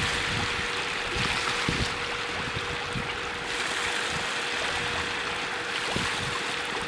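Hundreds of small pond catfish churning the water surface as they feed: a steady fizzing splash that swells and eases, with wind buffeting the microphone in low thumps and a steady hum underneath.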